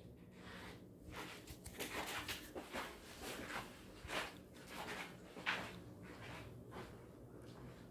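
Soft footsteps walking across a room floor, about one and a half to two steps a second, clearest from about one second in until near the end.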